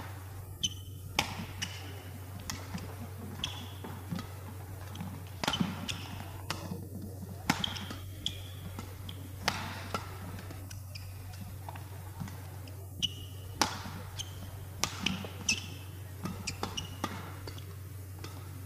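A long badminton rally: feathered shuttlecock struck back and forth by rackets, sharp irregular cracks about once a second, with short shoe squeaks on the court surface between shots. A steady low hum runs underneath.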